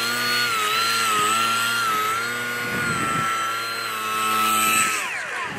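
Small FPV plane's electric motor and propeller whining at high throttle as it is hand-launched and climbs away. The pitch wavers a little, then falls smoothly near the end.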